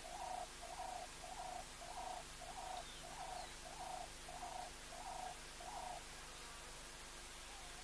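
A bird calling a steady series of short, evenly spaced hoots, about two a second, which stops about six seconds in.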